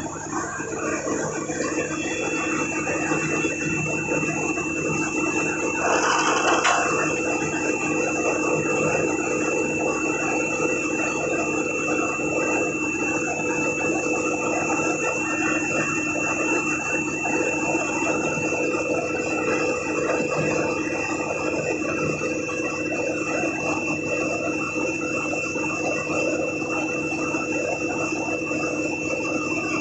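Road-concreting machinery running steadily, with a steady high whine over the running noise. A brief hiss comes about six seconds in.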